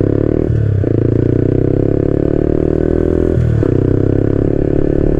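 Yamaha XSR 155's single-cylinder engine running through an SC Project CRT 470mm aftermarket exhaust while riding at slow speed, a steady note that shifts briefly twice, about half a second in and again after three and a half seconds.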